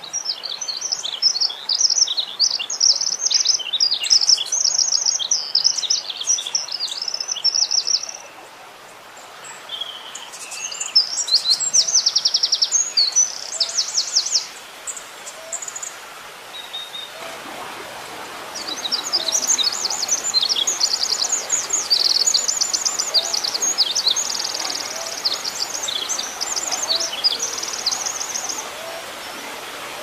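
Wren singing: three long, rapid bursts of very high, fast trills and warbles, the last starting about 18 seconds in. A steady rushing background comes in shortly before the last burst.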